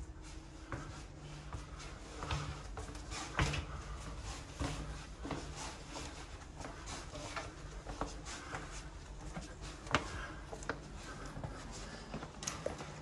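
Footsteps climbing wooden steps in a narrow stone passage: irregular knocks and scuffs, with a sharper knock about ten seconds in, over a low steady hum.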